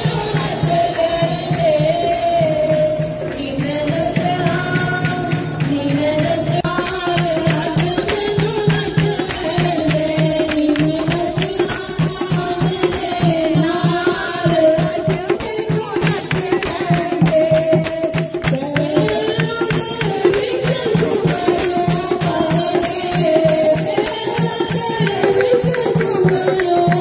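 A group of women singing a devotional song together, kept to a fast, steady beat of hand-clapping and percussion.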